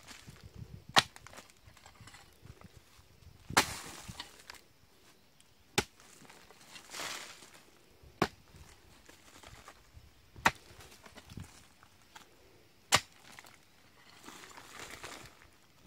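Steel hoe blade chopping into hard, dry earth, one stroke every two to three seconds, seven in all. A softer scraping hiss follows some strokes as loose soil is dragged back with the blade.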